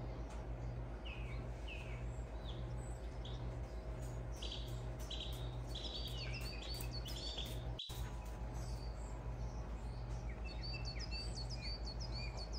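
Small birds chirping, short high chirps in quick runs, busiest in the middle and near the end, over a steady low hum that pulses about twice a second.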